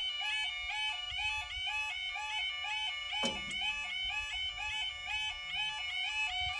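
Level crossing yodel alarm: a rapid, reedy two-tone warble repeating without a break as the road barrier lowers. A single knock comes a little over three seconds in.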